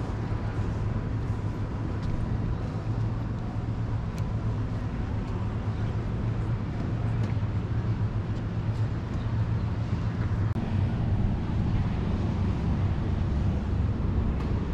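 Outdoor city ambience: a steady low rumble, growing louder about two-thirds of the way through.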